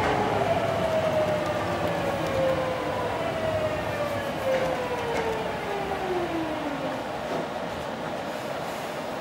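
Hankyu electric train braking into a station, heard from inside the front car: its motors whine, falling steadily in pitch and fading out about seven seconds in as the train slows to a stop, over the running rumble of the car.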